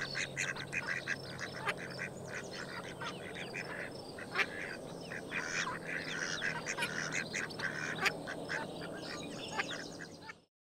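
Several ducks quacking, many short calls overlapping in a continuous chatter, which cuts off suddenly near the end.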